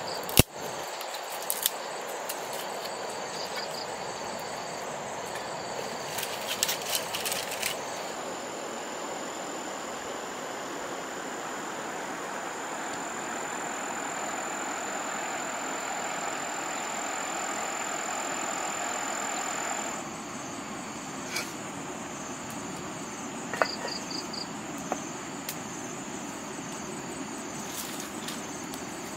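Insects trilling in short repeated high pulses over a steady background. For about twelve seconds in the middle, the steady rush of a fast-flowing river joins in with a single high insect drone, then stops abruptly. A few sharp clicks and knocks come throughout, the loudest just after the start.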